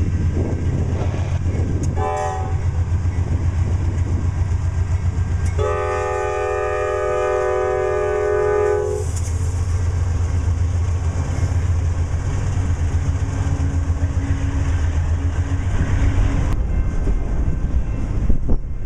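CSX freight train passing close, its diesel locomotives rumbling steadily. The horn sounds one short toot about two seconds in, then a long chord of about three seconds, and wheels click over the rail joints as the freight cars roll by.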